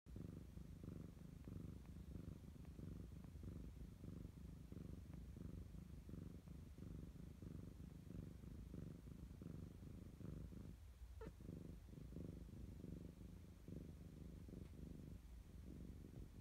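Calico cat purring softly and steadily while dozing: a faint, low, evenly pulsing rumble.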